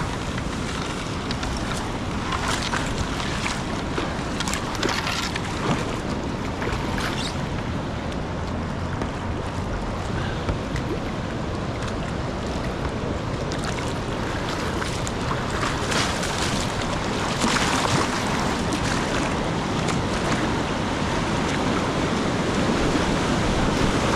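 Rushing whitewater of a river in high flood, heard close up, with occasional sharper splashes and wind buffeting the microphone; it grows slightly louder near the end.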